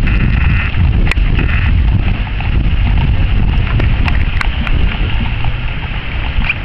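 Hooves of a team of horses pulling a caisson, clip-clopping on a paved road, with a few sharp clacks standing out, under a heavy low rumble on the microphone.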